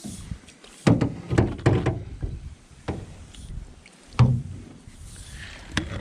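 A john boat's hull knocking and thumping as it is shifted during loading into a pickup truck bed: about six separate bangs, the loudest a little past the middle.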